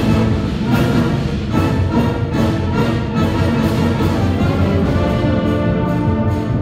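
School concert band of saxophones, trumpets and low brass playing loudly, accented beats falling about every 0.8 seconds for the first few seconds before the band moves into held chords near the end.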